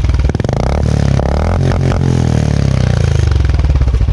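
Royal Enfield Classic 350's single-cylinder engine breathing through an aftermarket double-barrel silencer, revved once from idle: the pitch rises quickly, holds for about a second, then falls back towards idle near the end.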